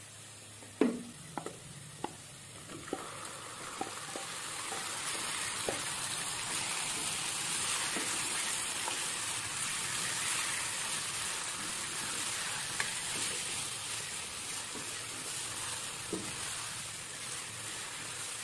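Marinated chicken pieces dropped from a steel bowl into hot oil and fried onions in a nonstick pan. A few sharp clinks come in the first few seconds, the loudest about a second in. Then a steady sizzle swells as the chicken is stirred and fries, easing a little near the end.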